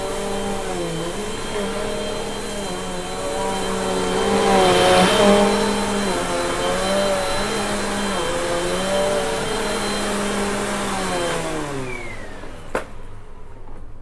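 Bissell upright vacuum cleaner running on carpet, its motor pitch wavering as it is pushed back and forth, louder around five seconds in. Near the end it is switched off and winds down with a falling pitch, followed by a single click.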